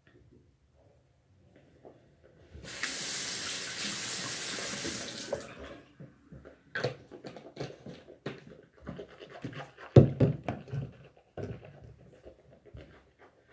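Bathroom sink tap running for about three seconds, then a string of irregular small knocks and clicks at the sink, the loudest about ten seconds in.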